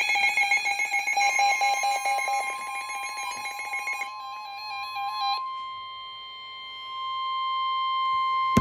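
Emergency Alert System alert tones: a rapid, fluttering electronic tone sequence for about the first five seconds, then a single steady high-pitched attention tone, signalling that an emergency warning broadcast is about to begin.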